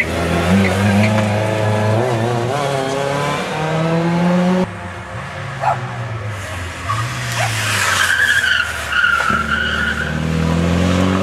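Rally car engines revving hard through a tarmac hairpin, the pitch rising and falling with throttle and gear changes. Partway through it cuts to a second car arriving, a tyre squeal as it turns in, then its engine climbing steadily as it accelerates out.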